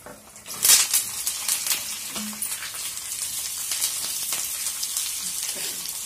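Sliced onions hit hot oil in a small kadai during a tempering with mustard seeds, cumin, dried red chillies and curry leaves. They go in with a loud sizzle under a second in, then fry with a steady, crackling sizzle.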